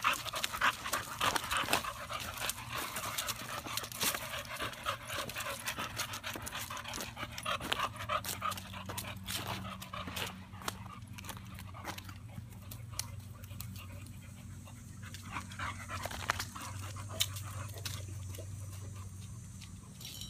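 American Bully dogs panting in quick breaths in the summer heat, busiest in the first several seconds and thinning out later. A low steady hum runs underneath.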